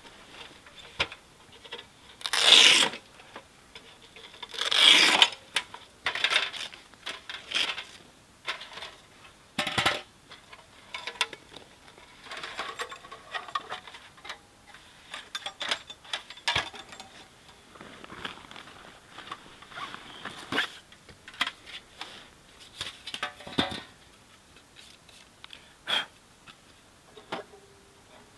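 Thin sheet-metal panels of a folding camp wood stove being unpacked and fitted together by hand: scattered metal clinks, knocks and scrapes, with two longer, louder scrapes a few seconds in.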